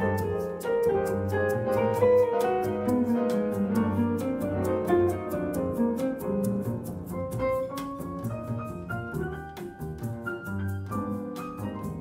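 Bossa nova band playing an instrumental passage without vocals: piano, double bass and guitar, with a steady rhythmic tick running through.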